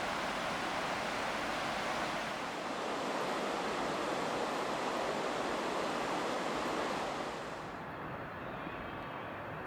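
Steady rushing noise of water or wind, which turns quieter and duller about seven and a half seconds in.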